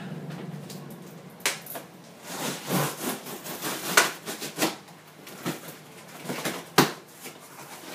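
Cardboard parcel being opened by hand: rustling and scraping of cardboard and packaging, broken by several sharp knocks and clicks.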